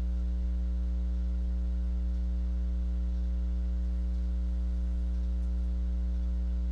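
Steady electrical hum: a low buzz with a ladder of fainter overtones above it, holding the same pitch and level throughout.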